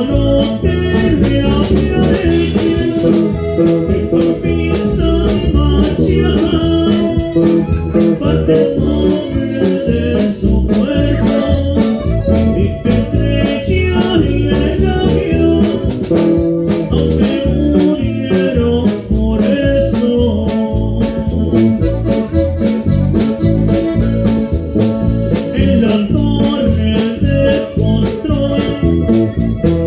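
Live norteño band playing a song: guitar, bass and drum kit with a steady beat, in an instrumental stretch between sung verses.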